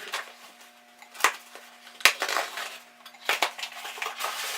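Unboxing sounds: packaging rustling and hard electronic parts clinking and knocking as they are handled, with several sharp knocks, the loudest about two seconds in. A faint steady hum runs underneath.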